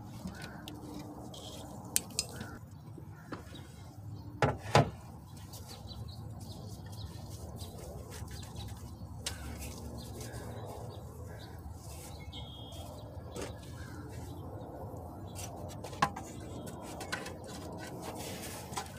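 Sporadic metallic clinks and knocks of hand tools on car engine parts, the loudest a double knock about five seconds in, over a low steady background hum.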